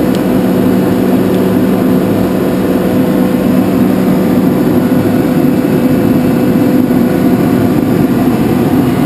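Ingersoll Rand SSR-EPE25U 25 hp rotary screw air compressor running, a loud, steady drone with an even hum.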